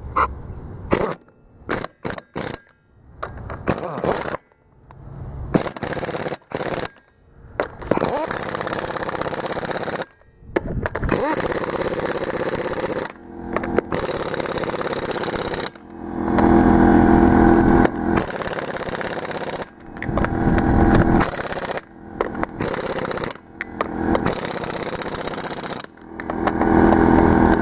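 Pneumatic impact wrench driving wheel bolts in a series of trigger bursts: short spins at first, then longer runs, and from about sixteen seconds in, four louder bursts as the bolts tighten down.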